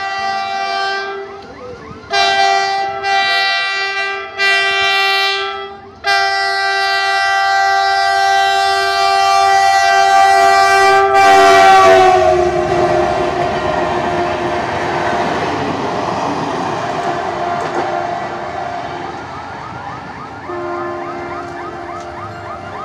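GE WDG4G diesel locomotive sounding its horn: two short blasts, then a long blast held for about six seconds whose pitch drops as the locomotive passes. The rumble of the locomotive and its coaches going by follows, and a fainter horn starts near the end.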